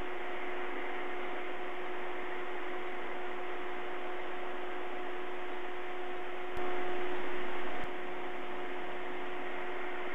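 Steady hiss with a low two-tone electrical hum: the noise floor of a live nest camera's audio feed. About six and a half seconds in, a slightly louder stretch of about a second starts and ends with a click.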